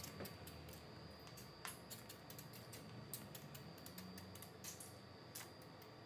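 Faint, irregular light clicks and taps over quiet room tone, with a faint steady high whine.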